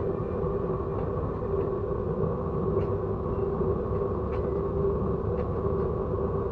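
Train on the Simpson Railroad running: a steady rumble under a steady hum, with a few light clicks now and then.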